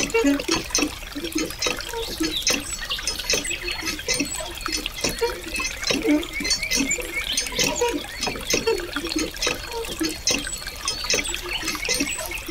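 A thin stream of water pouring steadily into a shallow pool of water, splashing as it lands.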